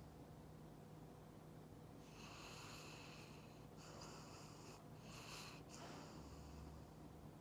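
Labrador–Schnauzer mix dog snoring in its sleep, faintly: a few breathy, hissing snores about two seconds in, then a low rumbling snore near the end.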